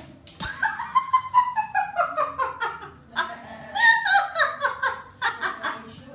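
A person laughing hard in two long fits of quick, falling 'ha-ha' notes, after a brief sharp knock at the start.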